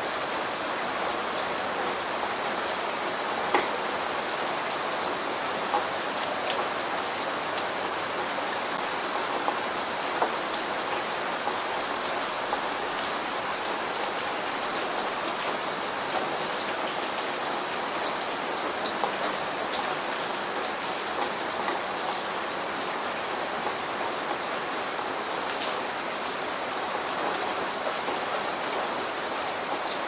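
Steady rain falling, an even hiss with scattered louder drops pattering across it.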